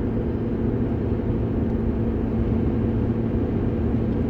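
Steady low rumble with a constant droning hum, like a vehicle running.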